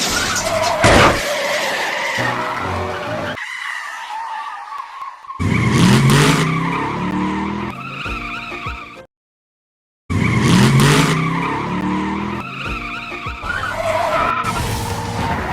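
Car skid-and-crash sound effects, played one after another. Tyres squeal over rising engine revs, with sharp impacts. There is a brief silent gap about two-thirds of the way through before the effect starts again.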